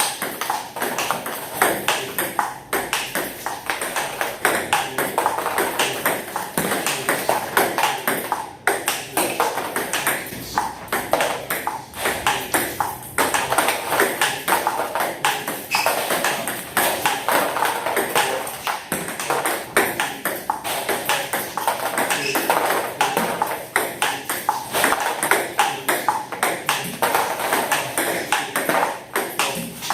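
Table tennis balls being hit by rackets and bouncing on the table in a rapid, continuous practice drill: a dense stream of sharp clicks, several a second.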